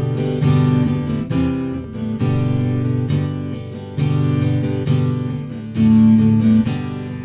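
Acoustic guitar strummed in a steady rhythm, with the chord changing about every second; an instrumental break with no singing.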